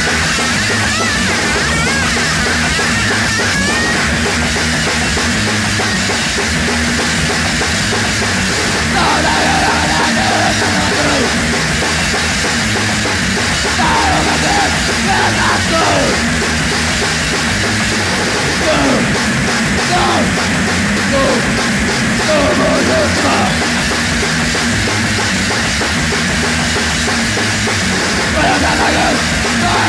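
Raw, loud hardcore punk from a demo recording: heavily distorted guitar, bass and fast drums making a dense, noisy wall of sound.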